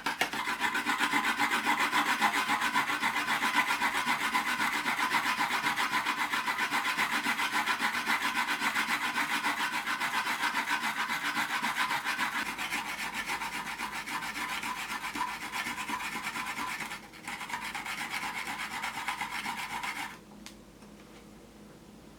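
Onion being grated on a hand grater, a fast run of rasping strokes with a short break near the end before it stops.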